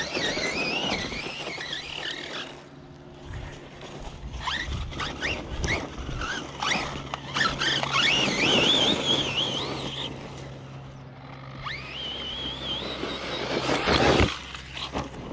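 Redcat Kaiju EXT RC monster truck's brushless electric motor whining, its pitch rising and falling with the throttle, over the hiss and knocks of its tyres on dirt. A louder rush comes near the end.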